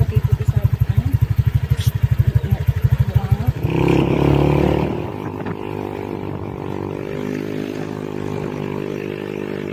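Motorcycle engine idling with a fast, even low chug, then, about three and a half seconds in, a louder rush and the engine running with a steady drone as the bike rides along.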